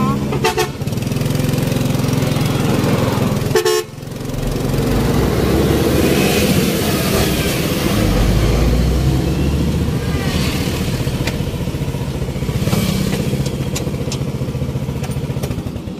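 Motorcycle engine of a tricycle running as it rides along, with wind rushing past; there is a brief break about four seconds in.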